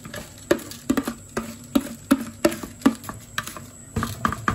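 Metal spoon knocking and scraping against the rim of a bowl as wet, rinsed rice is scraped out into a pot, in quick sharp clicks about three times a second.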